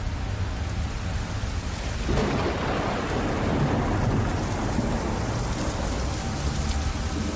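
Steady rain with a roll of thunder that swells up about two seconds in and slowly rumbles away.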